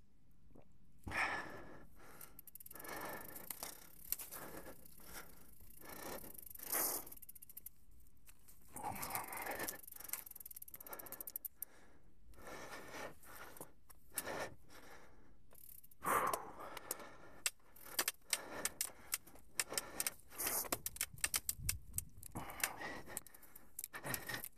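Mountain bike ridden along leaf-covered singletrack: tyres crunching through dry leaves while the bike rattles over bumps, the rattling busiest in the last third.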